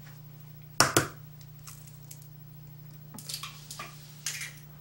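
Eggs being cracked open over a glass mixing bowl: two sharp taps about a second in, then fainter clicks of eggshell breaking near the end.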